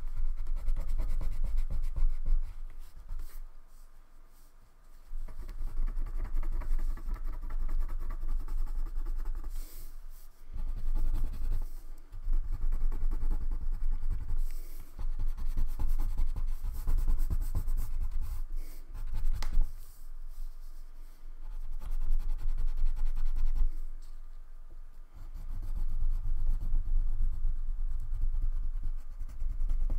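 Wax crayon colouring on paper: rapid back-and-forth scribbling strokes in stretches of several seconds, broken by a few brief pauses.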